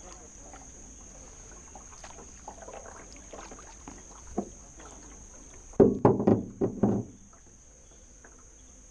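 A dog barking in a quick run of about five barks around six seconds in, over quiet canoe paddle strokes and water.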